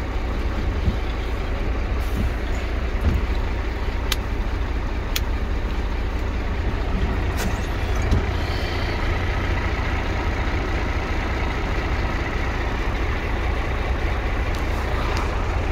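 Scania P114 dump truck's 11-litre six-cylinder diesel engine running steadily, heard from inside the cab. A few sharp clicks come through about four, five and seven seconds in.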